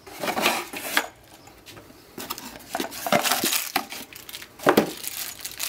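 Unpacking noises: packaging rustling and the dome camera and its parts clicking and knocking as they are lifted out of the box and handled. The rustles and clicks come in irregular bunches, thickest in the second half, with one sharper knock near the end.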